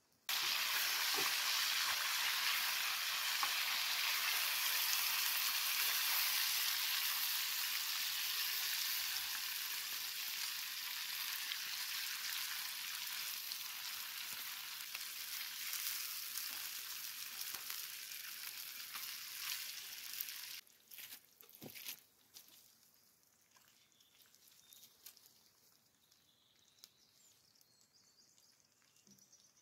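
Food sizzling in oil in a frying pan over campfire embers: a loud, steady sizzle that starts suddenly, slowly fades and cuts off about two-thirds of the way through, followed by a few sharp knocks.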